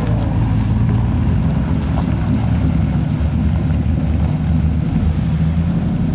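Off-road 4x4 truck engine running steadily at low revs, with wind noise on the microphone.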